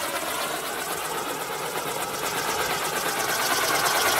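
A garden firework spraying sparks, with a steady rushing hiss and a fast crackle that grows louder near the end.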